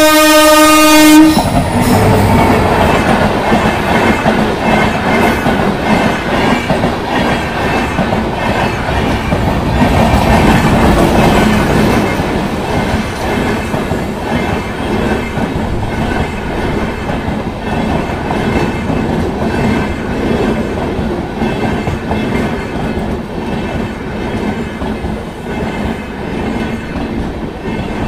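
Indian Railways WAP-7 electric locomotive's horn sounding one steady note that cuts off about a second in, then the loud rumble and wheel clatter of its 22-coach passenger train passing close by, easing slightly in the second half.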